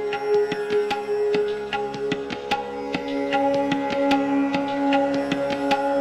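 Background music in an Indian classical style: sustained drone-like notes under a run of quick hand-drum strokes.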